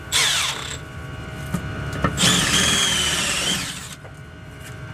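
Cordless drill drilling out the rivets that hold the lining on a truck drum brake shoe. It runs in two bursts: a short one at the start that falls in pitch as the drill slows, and a longer, louder one with a high whine starting about two seconds in and lasting about a second and a half.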